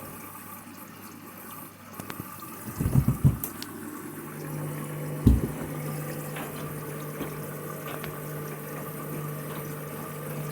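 Washing machine taking in water during a rapid wash cycle, with a steady hum underneath. A few loud knocks sound about three seconds in and a single sharp one just after five seconds.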